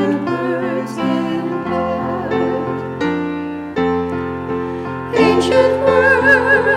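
Piano playing held chords with a singer's voice carrying wavering, vibrato notes; the voice comes in louder about five seconds in.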